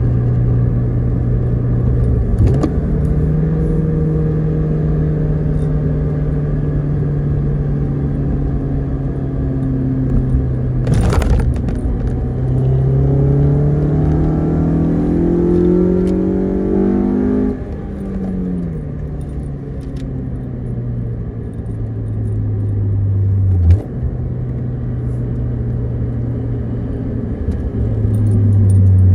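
2006 Honda Civic Si's four-cylinder engine running while the car is driven. Its note holds steady, then rises for about five seconds under acceleration and falls away sharply at a gear change, with a light rattle and a short knock later on.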